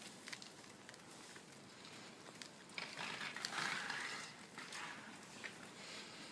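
Footsteps on a forest path: faint irregular crunching and clicking, with a louder rustle of leaves or undergrowth from about three to four and a half seconds in.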